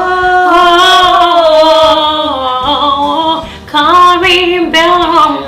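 A solo voice singing long held vowel notes: one held for about two and a half seconds with a slight waver, then two shorter notes.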